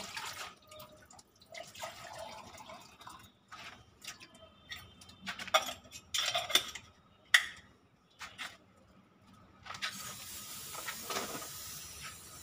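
Water poured and splashing into the stainless-steel cup of a gravity-feed spray gun, with clinks of metal as the cup is handled. About ten seconds in, a steady hiss starts as the gun sprays the water in a test run, powered by air from an inflated inner tube instead of a compressor.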